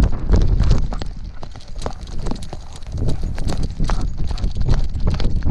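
A running dog's paws striking dry dirt, heard from a camera strapped to its harness: quick, rhythmic thuds and knocks from the mount, over a low rumble on the microphone. The footfalls ease off about a second in and pick up again about three seconds in.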